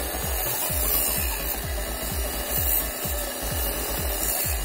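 Steel pliers handle pressed against a spinning abrasive grinding wheel, a steady rasping grind as the metal is ground down, under a low, uneven thudding a few times a second.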